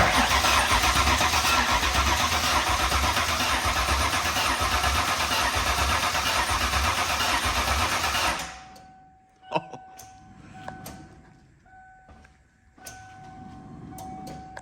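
Starter cranking a freshly built Ford 5.0 V8 in a Mustang with an even, pulsing beat for about eight seconds without the engine catching, then stopping. It will not fire because the ignition is giving no spark. A few faint clicks and knocks follow.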